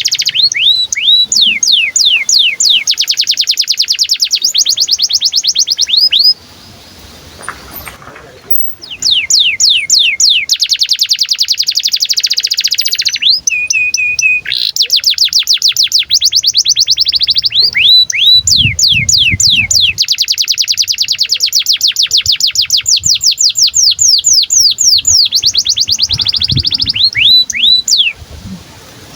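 Domestic canary singing a long run of fast, repeated falling chirps, about six or seven a second, broken by one pause and a short, steady trill partway through. This is the excited 'cuit cuit' chirping of a canary in breeding condition.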